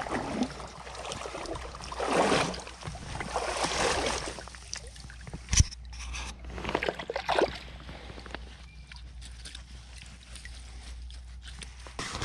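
Water sloshing and splashing as a small brook trout is brought in and scooped into a landing net, over the trickle of a small stream. There is one brief sharp knock a little past the middle.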